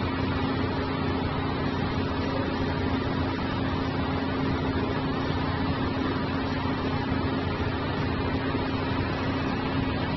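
Steady mechanical hum with a constant low drone and an even hiss, from a machine running without change.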